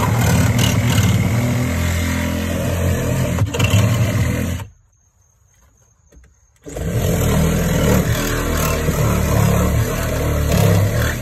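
Cordless DeWalt power saw cutting through fiberglass boat hull. It runs loudly, stops about four and a half seconds in, starts again two seconds later, and stops near the end.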